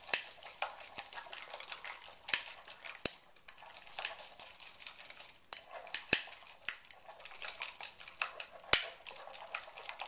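Wire whisk beating a thick sour cream dressing in a pitcher: rapid clicking and scraping against the sides, with a few sharper knocks of the whisk on the rim.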